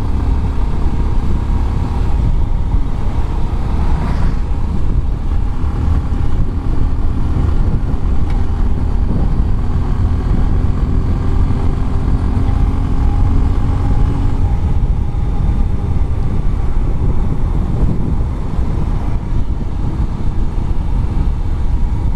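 Bajaj Pulsar 125 BS6 single-cylinder engine and exhaust running steadily while the bike is ridden along the road, its pitch shifting a little with the throttle. Heavy wind rumble on the action-camera microphone runs under it.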